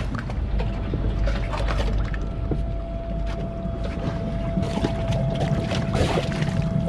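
Princess 72's hydraulic bathing platform lowering into the sea to launch a tender: a steady whine over a low rumble, with water sloshing and trickling over the teak platform as it goes under in the second half.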